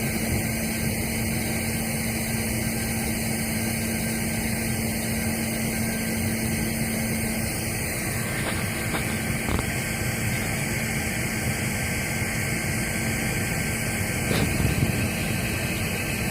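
Electric air blower forcing air into a charcoal-fired homemade foundry, running with a steady noise and a low hum that drops out about halfway through. A few faint clicks come later.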